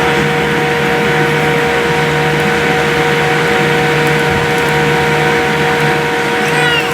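Cabin noise of a Boeing 787-8 with its Rolls-Royce Trent 1000 jet engines running: a steady, loud rush with several steady whining tones in it. A brief falling sweep is heard near the end.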